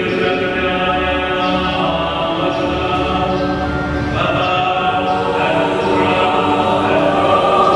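Choir singing slowly in long held notes, changing note every second or two.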